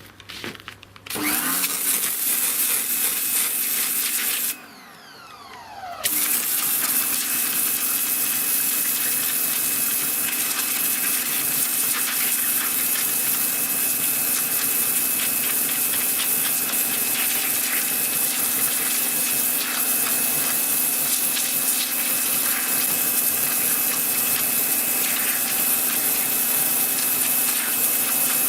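Sunpow BCN-H 1600-watt electric pressure washer running with the red 0-degree high-pressure nozzle: a steady motor and pump hum under the loud hiss of the pencil jet. It starts about a second in, stops briefly about four seconds later with a falling whine as the motor winds down, then starts again about two seconds after that and runs steadily.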